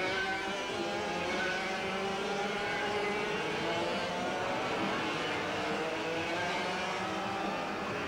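Several racing kart engines passing, their pitch rising and falling as they speed up and slow down.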